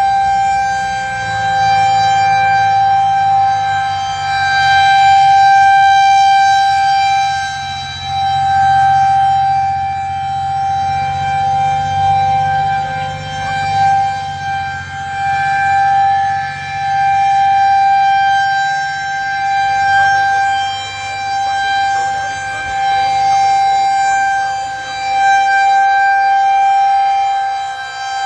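Federal Signal 2001-130 rotating outdoor warning siren sounding a steady single tone for a tornado warning. Its pitch stays fixed, and the sound swells and fades every five or six seconds as the rotating horn sweeps past.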